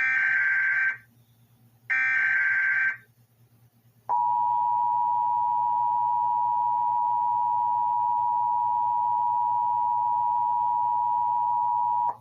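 Emergency Alert System broadcast header announcing a National Weather Service tornado warning: two one-second bursts of screeching digital data, a second apart, then about four seconds in the steady two-tone EAS attention signal, which holds for about eight seconds and cuts off suddenly.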